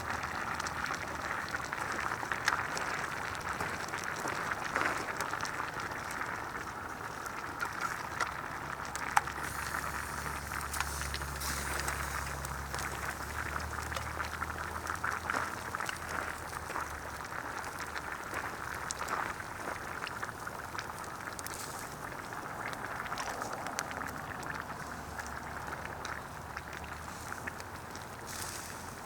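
Cooking over a wood fire: a steady hiss with many small crackles and pops throughout, with a low hum underneath for several seconds in the middle.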